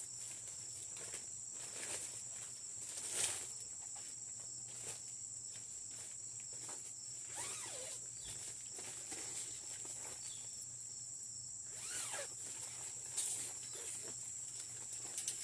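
Clear plastic greenhouse cover crinkling and rustling in short bursts as it is pulled down over a metal shelf frame, the loudest crinkle about three seconds in. A steady high insect drone runs underneath.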